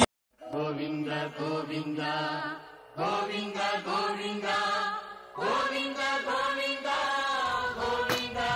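Devotional chanting in the style of a mantra. A voice holds long, steady notes in three phrases, each with a short break before the next. It starts suddenly after a brief silence.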